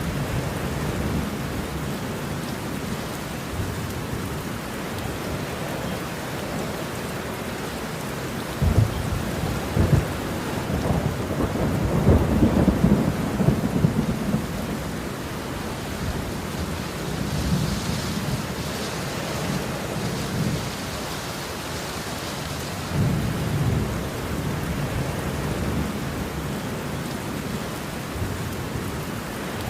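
Steady rain with rolling thunder. The loudest thunder comes about a third of the way in, opening with a couple of sharp claps and rumbling on for several seconds; softer rumbles follow later.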